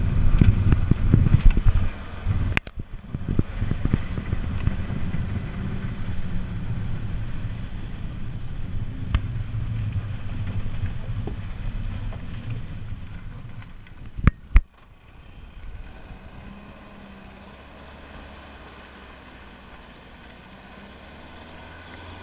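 Pinzgauer off-road truck driving on a dirt track, its engine and running gear getting quieter as it slows and stops. Two sharp knocks come about two-thirds through, then the engine idles steadily.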